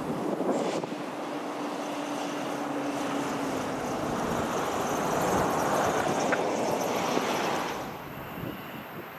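Two EMD diesel road-switcher locomotives, a GP39E and a GP38-2, running with a steady engine drone that swells toward the middle and drops off abruptly near the end.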